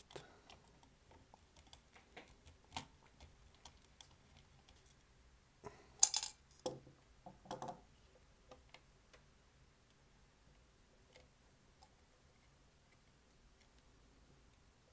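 Small screwdriver clicks and taps as the last screw is backed out of a graphics card's backplate, then hand-handling knocks as the backplate is worked at to lift it off, with one louder clatter about six seconds in. Faint ticks trail off in the second half.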